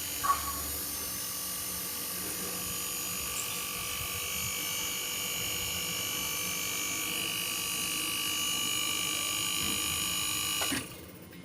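Panasonic inverter air conditioner compressor running, a steady hum with a high whine that grows stronger about halfway through. A sharp click comes just after the start, and the sound drops away abruptly near the end.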